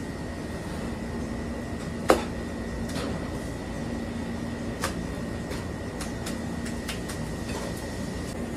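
Steady hum of kitchen ventilation or appliances with a faint high whine. A few sharp clicks and knocks sound over it: one loud knock about two seconds in, a softer one past the middle, and several light ticks near the end.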